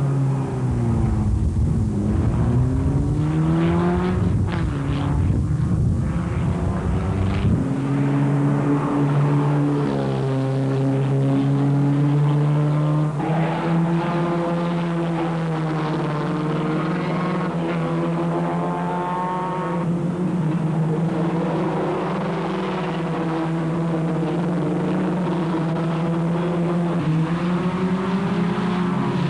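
Single-seater racing car engines running at full race pace, their pitch rising and falling as the cars brake and accelerate through the corner, with several cars heard at once. A heavy low rumble lies under the engines for the first seven seconds or so, then a steadier, held engine note follows.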